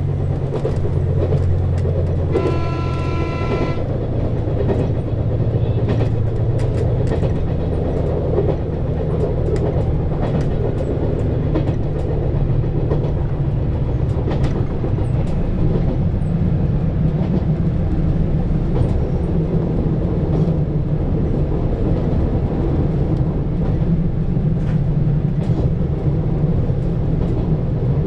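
KiHa 187 series diesel railcar running at speed: a steady diesel engine drone with scattered clicks from the rails. A horn-like blast of about a second and a half comes about two and a half seconds in, and the engine note changes about ten seconds in.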